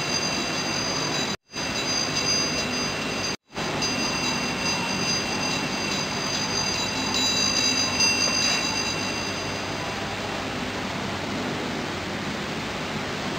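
Steady hiss of background noise with faint high whining tones, cut off completely twice for a split second about one and a half and three and a half seconds in.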